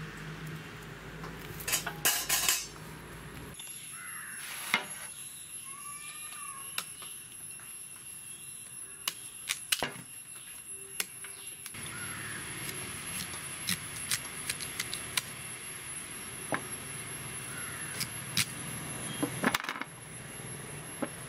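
Cassava roots being peeled and chopped with a knife and a large curved chopper blade over a steel plate: irregular sharp knocks and clinks of the blades on the tubers and on the metal plate, with bursts of rapid clicks.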